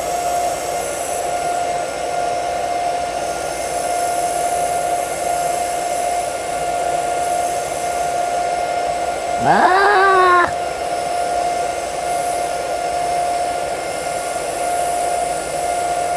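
TIG welding arc burning steadily during a vertical-up root pass: a constant hiss with an even, steady tone. A person's voice cuts in briefly about halfway through.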